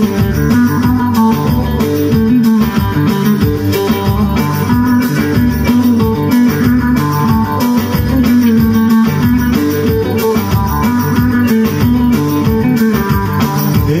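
Amplified saz (bağlama) playing a fast, busy Turkish folk melody over a steady backing beat, instrumental with no singing.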